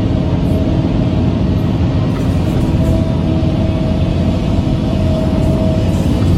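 Excavator's diesel engine running steadily with a low rumble, with music mixed in.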